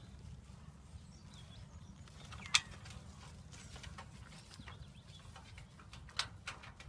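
A few short, sharp clicks and knocks, the loudest about two and a half seconds in and another near the end: a Segugio Italiano hound's claws striking the wooden fence post as it balances on it and climbs down. A steady low rumble runs underneath.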